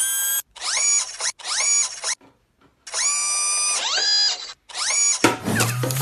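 Robot servo-motor sound effects: about six short electronic whirrs, each rising in pitch and then holding steady before cutting off sharply, one longer than the rest about three seconds in and a heavier one with a low hum near the end.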